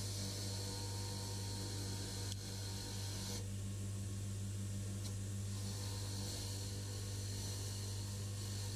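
Mac Afric belt grinder running with a steady motor hum. A metal block from a surface gauge is pressed against the abrasive belt twice, hissing for about three seconds each time, with a break of about three seconds between while the piece is held off the belt.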